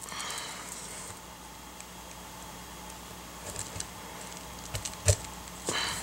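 Faint handling sounds of paper pieces on a craft cutting mat: a few light taps and clicks in the second half, the loudest a soft knock about five seconds in, over a steady low room hum.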